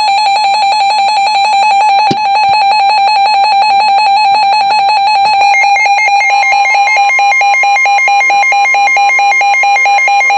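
NOAA weather radio receivers sounding their alert alarm for a newly issued warning: a loud, rapidly pulsing beep that starts suddenly, with a second alarm of a different, higher pitch joining about six seconds in. A single click about two seconds in.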